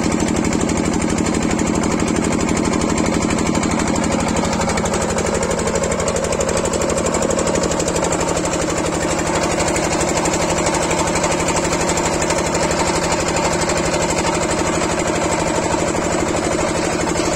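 Engine of a portable borewell drilling rig running steadily under load, with a fast, even chugging pulse as it turns the drill pipe into the ground; its note shifts slightly about five seconds in.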